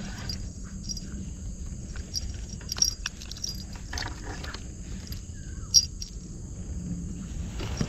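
Steady high-pitched drone of insects, with a few scattered clicks and knocks over it; the loudest is a sharp knock about six seconds in.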